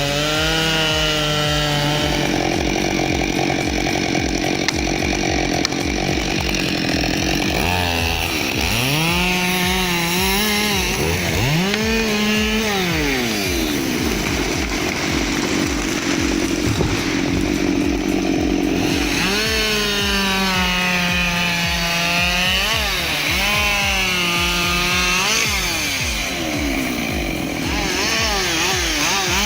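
Gasoline chainsaw cutting wood. Its engine pitch repeatedly drops as the chain bites into the cut and climbs again as it revs.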